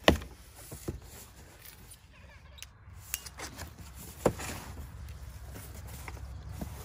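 Cardboard box being opened by hand: the flaps pulled up and folded back with rustling and scraping of cardboard, and a few sharp knocks and tears, the loudest just after the start and another about four seconds in.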